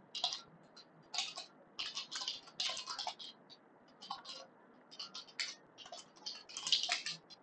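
Typing on a computer keyboard: quick, irregular runs of keystrokes with short pauses between them.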